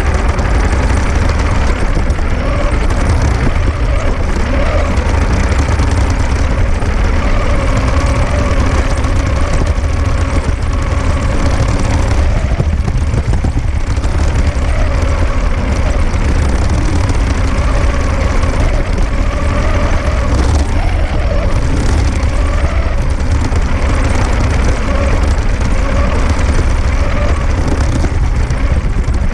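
3D-printed RC tank's drive motors and gears whining as it drives over grass, with a heavy rumble of the tracks shaking the onboard camera. The whine wavers in pitch as its speed changes.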